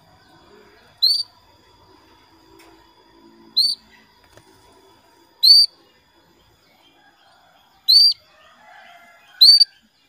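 Female canary giving five single short calls a couple of seconds apart, each a quick rising note that hooks over at the top. These are a hen's contact calls to a male.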